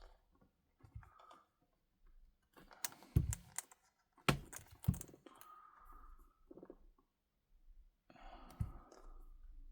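Sharp clicks and knocks of small hand tools being handled against a phone during screen removal. A cluster of them comes around the middle and a single one near the end, with quieter rustling between.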